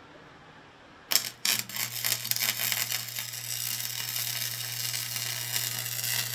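Wire-feed welder arc striking about a second in with a few sharp pops, then settling into a steady crackling sizzle over a low hum, as a weld bead is laid on a worn steel forging die to build it back up.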